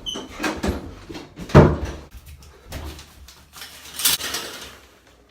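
A run of knocks and thumps from a door being handled in a hurry, the loudest about a second and a half in, then a short swish about four seconds in.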